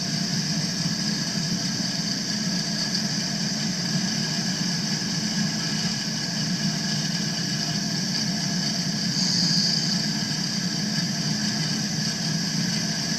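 Milling machine spindle running steadily as an end mill takes a cut around the pocket in a metal workpiece: a constant motor hum under a high cutting note, which brightens briefly about nine seconds in.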